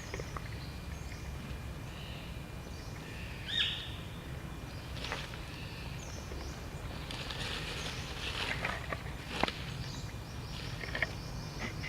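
Outdoor background noise with a steady low rumble, a single brief high-pitched chirp about three and a half seconds in, and a few scattered sharp clicks.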